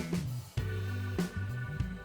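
Background music: an upbeat funk-style track with bass guitar and a steady drum beat.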